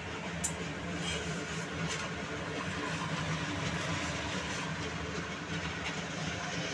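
A steady low mechanical hum, with a few light clicks of a steel spatula against the tawa as an aloo paratha is turned on it.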